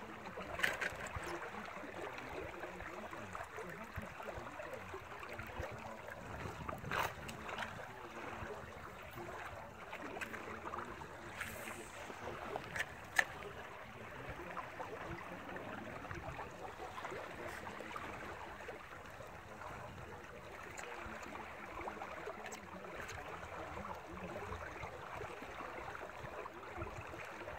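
Water rushing steadily out of a corrugated culvert into a canal, a constant splashing hiss, with a few sharp clicks.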